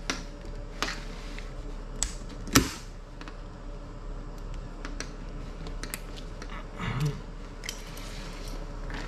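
A steady low hum with scattered light clicks and knocks, the sharpest about two and a half seconds in.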